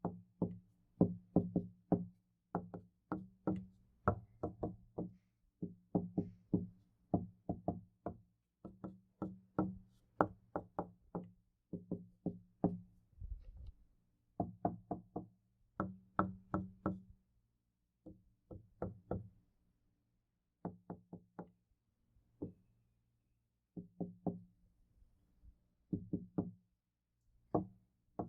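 Knuckles knocking on a wooden door in repeated quick clusters of two to five raps, each knock carrying a low, hollow ring from the door panel. The clusters come with short pauses between them, more widely spaced near the end.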